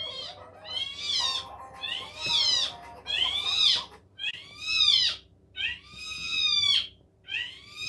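Cat meowing repeatedly, about seven drawn-out meows roughly one a second, each rising then falling in pitch, getting louder after the first few.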